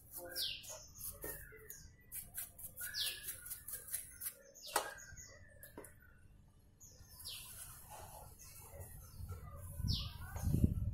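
Metal bicycle parts being swished and knocked about by hand in a tin of cleaning liquid: splashing and clinking, with one sharper knock near the middle. A bird calls in the background with four short falling notes.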